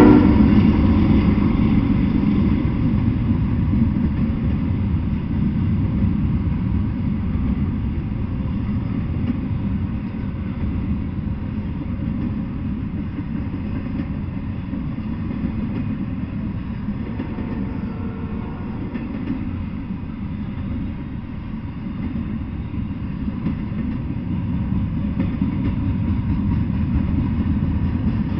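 Double-stack intermodal container freight train rolling past, with a steady low rumble of its wheels on the rails.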